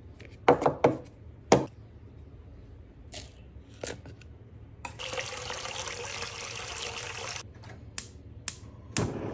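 Hard plastic knocks and clicks as Aeropress parts are handled and fitted together, then about two and a half seconds of liquid pouring that starts and stops abruptly, followed by a few sharp ticks near the end.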